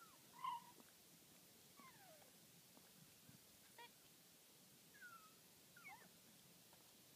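Several short, faint, high-pitched animal calls, each sliding down in pitch, spread through an otherwise near-silent stretch; the loudest comes about half a second in.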